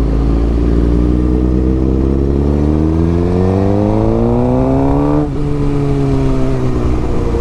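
Motorcycle engine accelerating, its pitch rising steadily for about five seconds, then dropping abruptly at an upshift and running on slightly lower.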